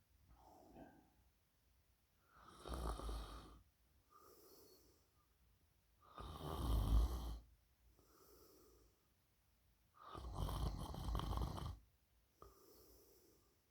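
A sleeping person snoring: three loud snores about four seconds apart, each lasting a second and a half to two seconds, with softer breaths in between.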